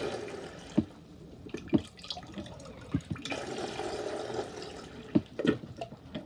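Water splashing from a beer engine's spout into a plastic jug in two spells, with several sharp knocks in between, as the beer line is flushed through with clean water after line cleaner. The flow ends in a drip.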